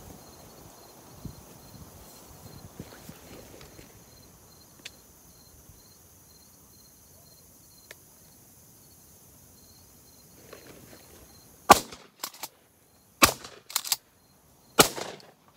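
Three loud shotgun shots about a second and a half apart, coming near the end after a quiet stretch of outdoor air. The first two shots are each followed by fainter cracks.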